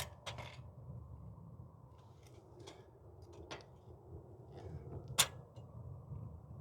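A few faint, scattered clicks and taps over a low background rumble, the sharpest one about five seconds in.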